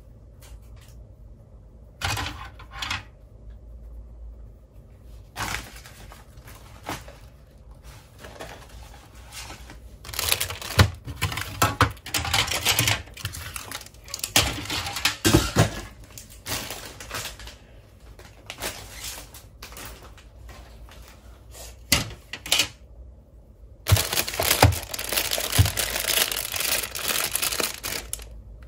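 Hard plastic toy parts clicking and clattering as they are picked up and handled. About four seconds from the end this gives way to a clear plastic bag crinkling steadily.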